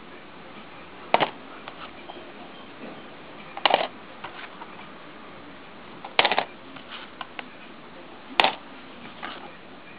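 Plastic DVD cases clacking as they are handled and set aside one by one: four sharp clacks roughly every two and a half seconds, with lighter ticks of the cases in between, over a faint steady hiss.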